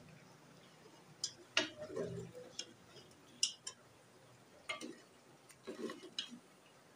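Metal ladle clinking and scraping against the side and bottom of an aluminium pressure cooker while stirring meat and spice masala as it fries, in a string of irregular sharp taps.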